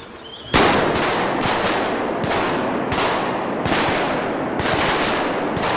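A rapid volley of shotgun blasts from several hunters firing at a passing duck. It starts with a loud shot about half a second in, then about a dozen more shots follow unevenly over the next five seconds, each trailing off in echo.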